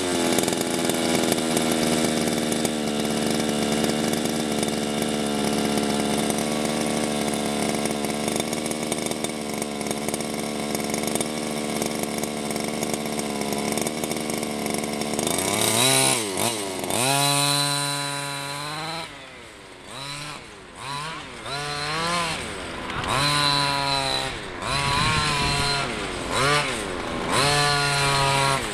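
The 26cc two-stroke gas engine of an HPI Baja 5SC RC truck runs at a steady fast speed for about fifteen seconds. It then drops back toward idle and is revved up and down again and again, its pitch rising and falling with each blip.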